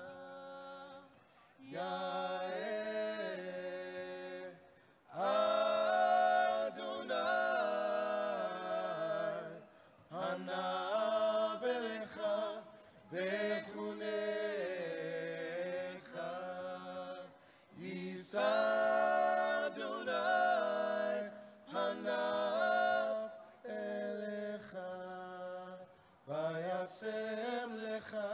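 A cappella vocal trio, two men and a woman, singing in close harmony without instruments, in phrases of a few seconds with brief pauses for breath between them.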